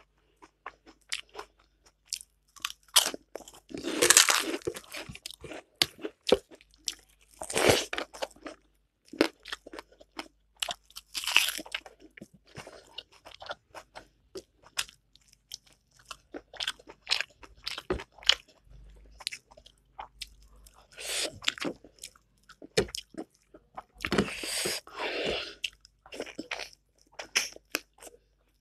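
Close-up mouth sounds of a person eating: crisp crunching and chewing, with many small sharp crunches and several louder, longer bouts of crunching. The food is fried crackers and rice with curry, eaten by hand.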